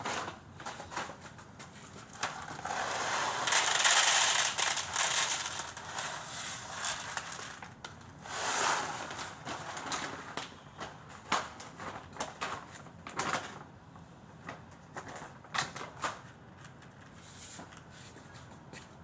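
Rustling and crinkling, like something being handled close by, loudest from about three to six seconds in and again briefly near nine seconds, with scattered clicks and knocks throughout.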